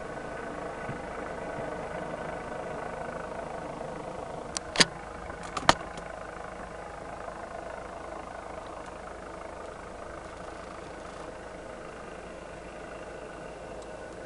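Steady, even drone of a helicopter's engine and rotor. A short cluster of sharp clicks about five seconds in, two of them loud.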